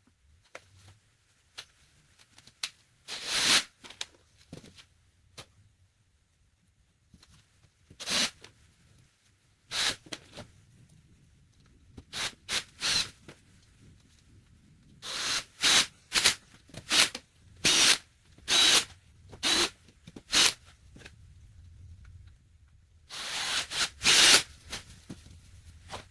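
A turning tool cutting into a spinning elk antler and resin bowl blank on a lathe, in short irregular scraping passes with brief pauses between them. The cuts come more often and louder in the second half.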